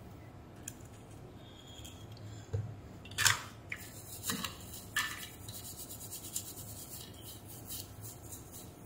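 Brush bristles scrubbing a circuit board. The first few seconds are quiet, then a few separate scratchy strokes come, followed by quick, light scrubbing at several strokes a second near the end.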